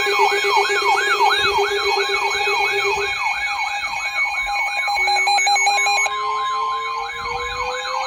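Electronic siren in a fast yelp, its pitch sweeping up and dropping back nearly three times a second over steady tones. About five seconds in, a second siren starts winding up, its pitch rising slowly, and a steady beep-like tone joins about a second later.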